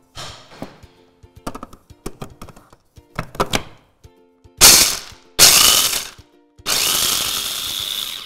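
Plastic parts of a mini electric chopper clicking and knocking as the bowl, lid and motor head are fitted, then its motor run in three bursts, the last one longest, grinding almonds.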